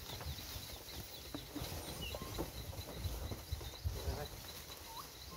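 Rural outdoor ambience: a rapid high chirping, about five chirps a second, fainter after the first second, over an uneven low rumble with a few soft knocks.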